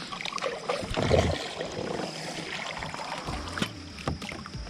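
Water splashing and sloshing around a kayak, with a few sharp knocks.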